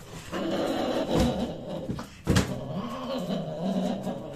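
Cats mating: a long, wavering, low yowling growl that rises and falls, with a sharp thump a little over two seconds in.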